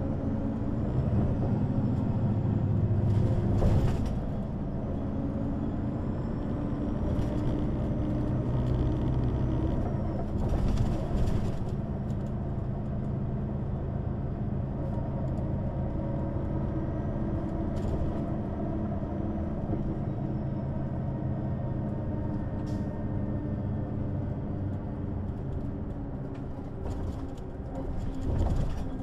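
Neoplan N 4416 city bus under way: diesel engine and ZF automatic gearbox pulling, the engine note building over the first few seconds and dropping about four seconds in, with a faint gearbox whine gliding up and down. A few short knocks and rattles are heard along the way.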